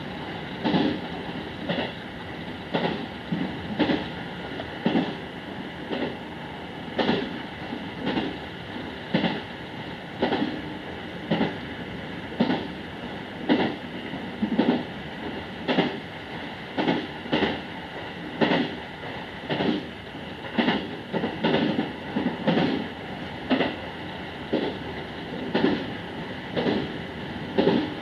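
JR West 221 series electric train heard from inside, running along the line with its wheels clattering over rail joints about once a second, often in quick pairs, over a steady running noise.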